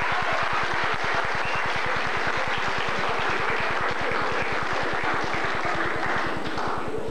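Hall full of people applauding steadily, with a fast, even low buzz running underneath.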